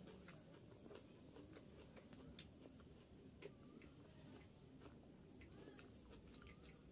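Faint, scattered soft clicks and wet smacks of a mouth chewing a handful of rice and curry, with fingers pressing into the rice near the end.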